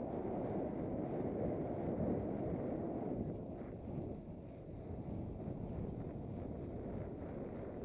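Steady, dull rush of wind on an action camera's microphone, mixed with the rolling rumble of a bicycle riding along asphalt.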